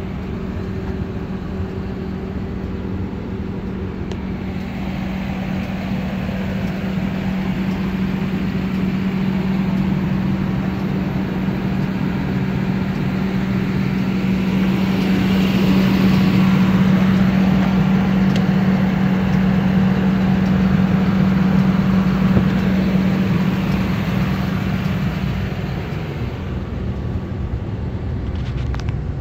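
An engine running steadily at idle with a constant low hum. A broad rushing noise swells up through the middle and eases off again near the end.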